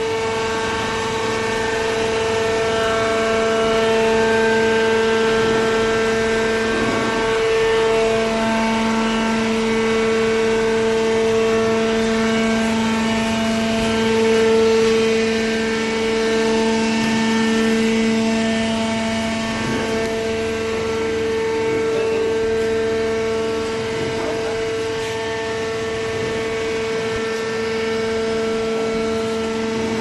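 Hydraulic baling press running: the power unit's pump and motor give a loud, steady whining hum, and a second, lower steady tone joins about eight seconds in.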